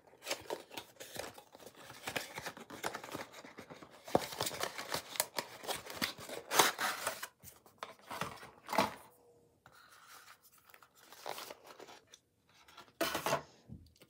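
A cardboard gift box being opened and its plastic insert tray pulled out and handled: scraping, rubbing and crinkling of cardboard and plastic. The noise is dense for the first nine seconds or so, then comes in a few separate bursts.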